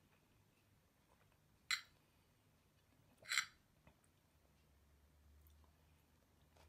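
Metal spoon scraping and clinking against a ceramic plate while scooping up rice, twice, about a second and a half apart.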